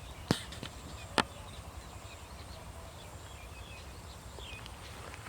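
Small birds chirping faintly and intermittently over a steady low rumble, with two sharp clicks within the first second or so.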